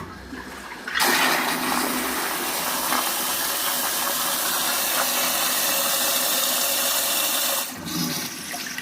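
Tankless toilet flushing: a loud rush of water starts about a second in, runs steadily for some six to seven seconds, then drops suddenly to a quieter running of water. The flush carries away plastic tile-levelling clips and wedges thrown into the bowl.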